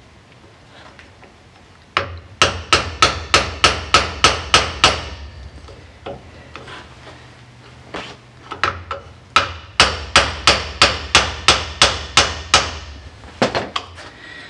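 Brass hammer tapping parts of a Z22 distributor down into its housing. Two runs of quick, even taps, about three a second, come with a few scattered taps between them and two more near the end.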